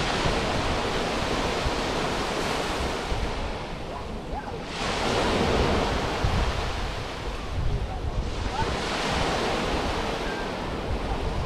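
Small sea waves washing onto a sandy beach, the surf swelling and easing about every four seconds, with wind buffeting the microphone.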